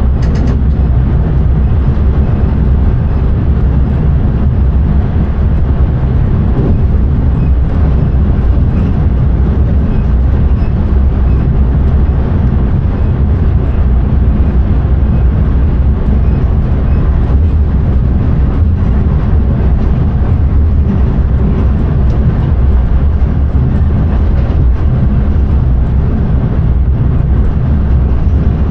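Steady low rumble of a passenger train running at speed, heard from inside the driver's cab.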